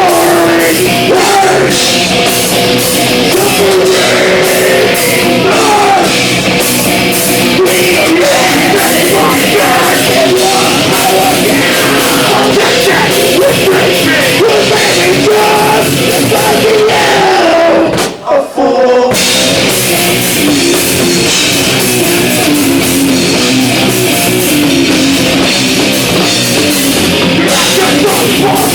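A loud live heavy punk rock band playing with drums, with an abrupt stop for about half a second about eighteen seconds in before the band comes back in.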